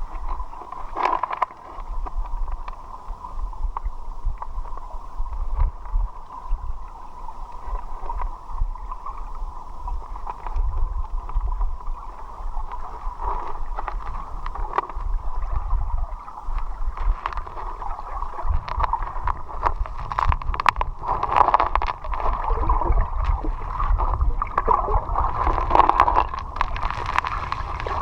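River water sloshing and gurgling close to the microphone, heard muffled, with a low rumble and scattered small knocks. It grows louder about two-thirds of the way through.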